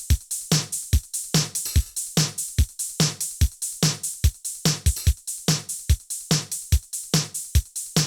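Electronic drum-and-bass drum loop playing alone, with a rapid even pattern of deep kicks and bright snare and hi-hat hits. It runs through a saturation plugin at its minimum setting, which trims the drum peaks by about 3 dB without a compressor or limiter.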